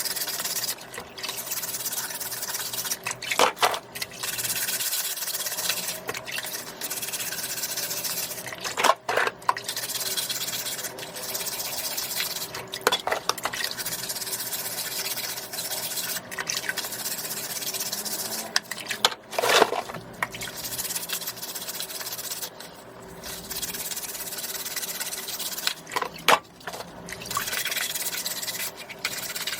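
Scallops being wiped by hand: a steady, wet rubbing and scraping, broken by a few brief louder knocks about 3, 9, 13, 19 and 26 seconds in.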